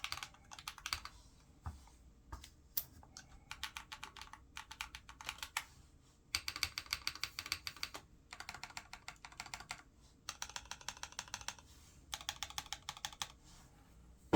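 Typ65+ custom mechanical keyboard with KNC Green Jacket switches lubed with 205g0 being typed on fast, in runs of rapid keystrokes broken by short pauses.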